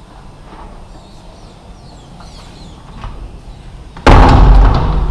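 Balcony door being pulled shut: a sudden loud clatter about four seconds in, lasting about a second, followed by a sharp click of the latch. Before it, faint birds chirping.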